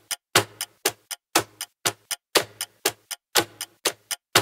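Countdown timer sound effect: a steady clock-like tick-tock, one strong tick each second with lighter ticks in between.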